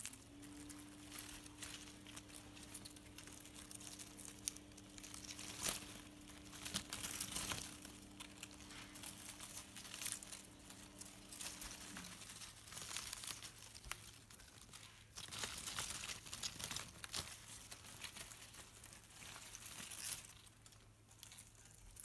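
Soft, irregular rustling and crinkling of basil leaves and stems as a budgie clambers through a potted basil plant. A steady low electrical hum runs underneath, and a second, higher hum cuts off about halfway through.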